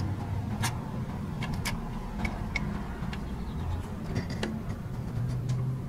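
Scattered light metallic clicks and taps as a socket, extension and ratchet are fitted onto a bolt, over a steady low hum.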